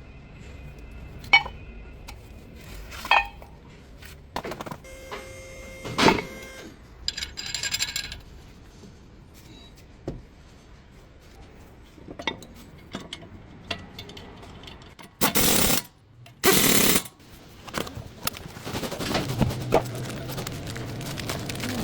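Metal tools and parts clinking and clanking, one knock ringing on briefly, with two short loud bursts of hissing about fifteen and sixteen and a half seconds in.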